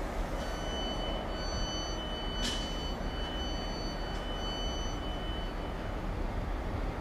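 HST power car of the New Measurement Train running slowly over curved pointwork with a steady rumble. A steady high-pitched squeal lasts most of the time, and there is a single sharp click about two and a half seconds in.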